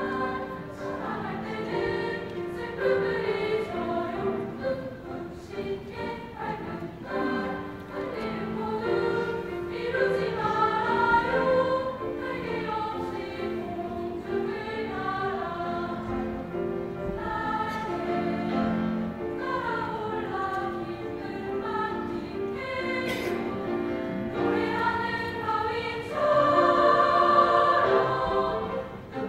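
Girls' high school choir singing in many voices, swelling louder near the end.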